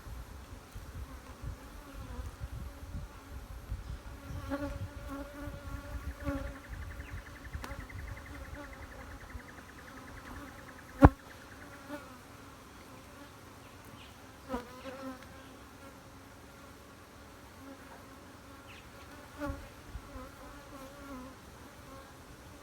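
Many honeybees buzzing in a steady hum around an opened hive, with single bees now and then flying close past in louder, pitch-bending buzzes. A single sharp click about halfway through is the loudest sound.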